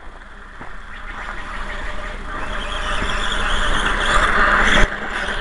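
Atomik MM450 RC motorcycle's motor whining and its tyres churning through loose dirt, growing louder, then a sharp knock near the end after which the sound drops.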